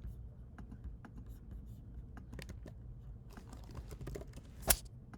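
Typing on a computer keyboard: irregular key clicks, with one much louder sharp click near the end, over a low steady hum.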